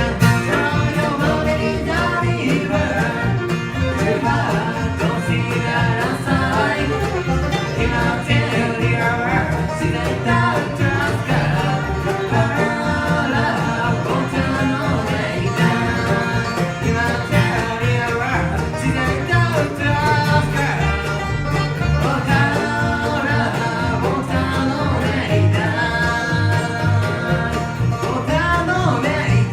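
Bluegrass band playing an up-tempo song, with banjo and guitar over a steady bass line.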